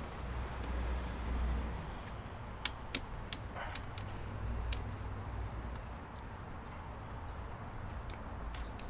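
A handful of sharp clicks and knocks as the bike carrier's metal arms and their push-in plungers are handled and fitted, over a steady low outdoor rumble.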